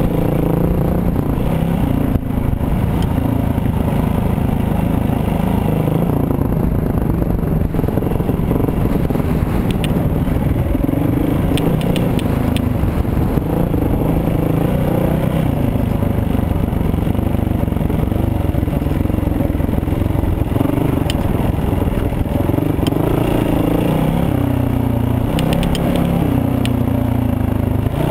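Yamaha dirt bike's engine running steadily as it is ridden over rough grass ground, the revs rising and falling. Scattered light clicks and rattles come from the bike about a third of the way in and again near the end.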